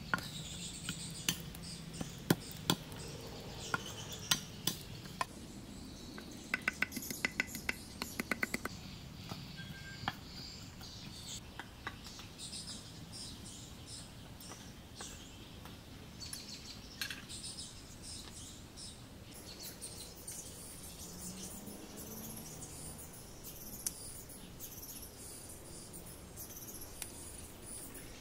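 A cleaver chopping garlic on a wooden cutting board: scattered sharp knocks in the first few seconds, then a quick run of chops between about six and nine seconds in, and only a few after that. Birds chirp in the background.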